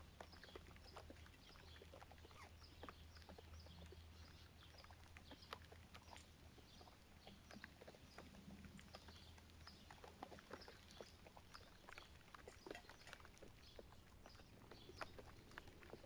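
Light rain falling, heard as faint, irregular ticks of drops landing close by, over a faint steady low hum.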